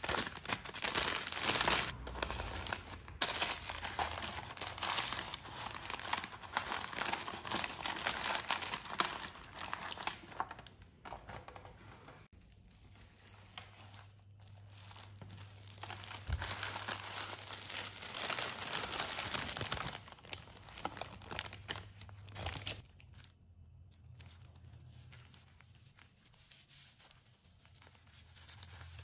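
Parchment baking paper crinkling and rustling as it is handled, on and off, louder in the first half and fading to soft rustles near the end.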